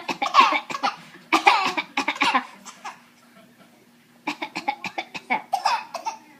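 Laughter mixed with a toddler's imitation coughs: two stretches of laughing, a short pause, then a run of quick, short bursts from about four seconds in.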